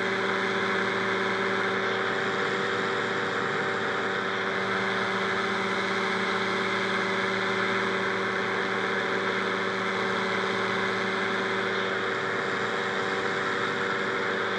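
Rotax 582 two-stroke twin engine of a powered parachute running at a steady speed, with no rise or fall in pitch.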